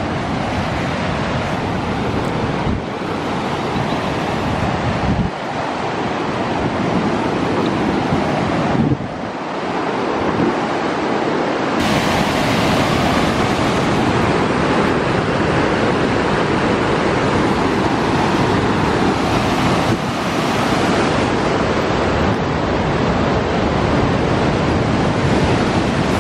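Whitewater rapids rushing over rock in a loud, steady wash that grows fuller and brighter about halfway through.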